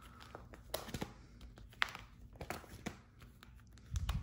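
Plastic sleeve pages of a card binder crinkling and rustling as they are handled and turned, in several short strokes, with a low thump about four seconds in.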